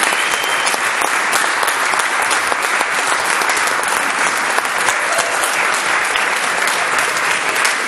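Audience applauding: steady, dense clapping from many hands, holding at an even level throughout.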